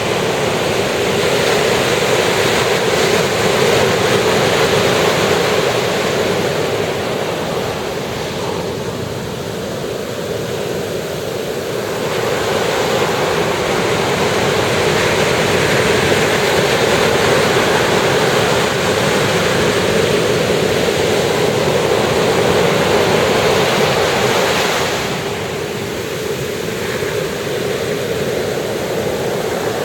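Ocean surf breaking on the shore: a continuous rush of waves that swells and eases, dropping back about eight seconds in and again about twenty-five seconds in.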